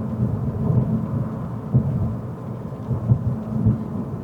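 Low, steady rumble of a car on the move, heard from inside the cabin: road and engine noise with a few small knocks.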